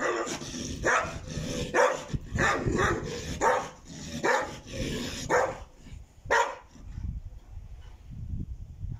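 Dog barking repeatedly, about eight or nine barks in quick succession, then stopping about two-thirds of the way through.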